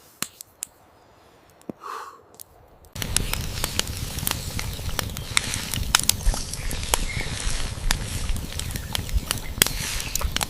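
Wood fire crackling and popping. A few faint snaps come first, then a dense, busy crackle starts abruptly about three seconds in.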